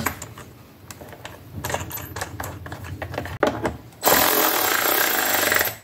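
A ratchet wrench tightening the fuel tank's mounting bolt on a Yamaha PW50 dirt bike. A few light clicks and knocks come first, then about two seconds of loud, continuous ratcheting near the end.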